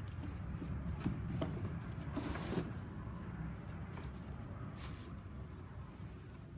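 Climbing spurs and harness gear being pushed down into a tall cardboard box: scattered knocks and rustling against the cardboard, with a longer scraping rustle about two seconds in and another near five seconds.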